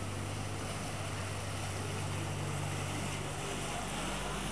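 Open canal tour boat's motor running with a steady low hum as the boat comes up and passes beneath. The hum shifts in pitch about three and a half seconds in, over a wash of wind and water noise.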